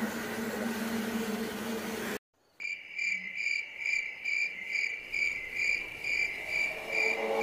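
A vehicle engine hums steadily inside the cab for about two seconds, then cuts off abruptly. After a moment of silence, a night insect calls in a high, even pulsing trill of about two pulses a second.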